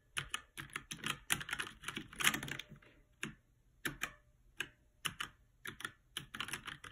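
Typing on a Dierya 60% mechanical keyboard with brown tactile switches: irregular keystroke clicks, a quick run in the first couple of seconds, sparser single keystrokes in the middle, and picking up again near the end.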